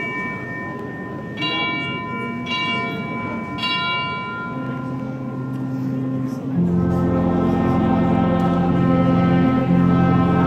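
Church bells ringing, a stroke about once a second, each ringing on. About six and a half seconds in, a wind band comes in loud with long sustained chords.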